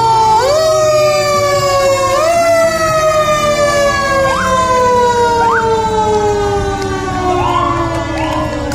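A siren, pitched up twice in quick rises, then falling slowly in one long wail as it winds down.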